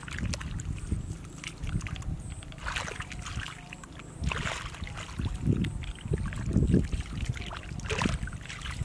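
Shallow muddy water sloshing and splashing in irregular surges as hands grope through mud and water for a catfish hidden in the bottom.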